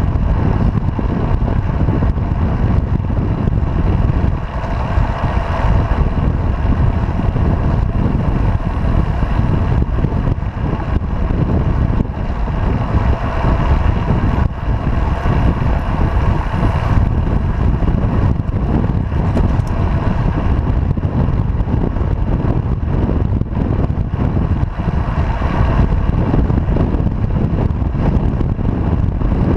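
Wind buffeting the microphone of a bicycle-mounted camera at riding speed, a loud steady rumble mixed with the hum of tyres on the asphalt.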